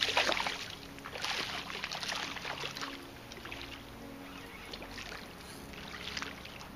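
Water splashing and sloshing in the shallows as a hooked redfish thrashes while being fought toward shore, busiest in the first couple of seconds and then fainter.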